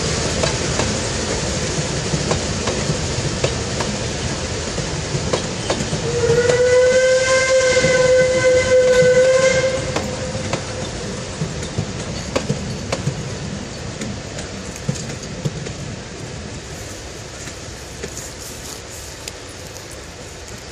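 Narrow-gauge passenger carriages rolling past, wheels clicking over the rail joints, growing fainter as the train moves away. About six seconds in, the steam whistle of the Climax geared locomotive at the head of the train sounds one long blast of about three and a half seconds.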